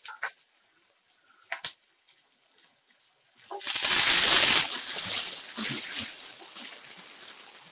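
Shallots and dried red chillies frying in hot oil in a nonstick wok for a tempering. A few faint pops come first. Then, a little past halfway, a wooden spatula stirs them and the sizzling flares loud for about a second before settling to a lower, steady sizzle.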